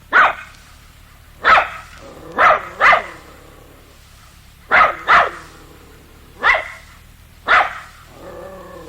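A dog barking: eight short, sharp barks at irregular intervals, some in quick pairs.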